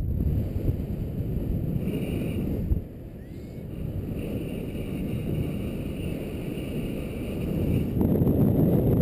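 Wind rushing over the camera microphone in paraglider flight, a steady low buffeting that grows louder about a second before the end.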